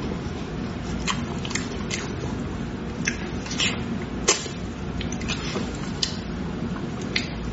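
Close-miked eating of braised pig tail: wet mouth smacks, biting and chewing, with the sticky tearing of the meat pulled apart by hand. Irregular sharp clicks come every half second or so.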